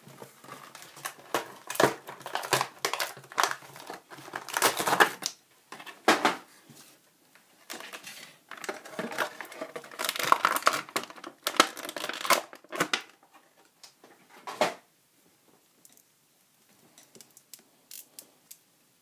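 Plastic-and-cardboard action figure packaging crinkling and rustling in repeated bursts as it is pulled apart, with one sharp louder burst about fifteen seconds in. After that come only a few faint clicks and taps as the plastic figure is handled.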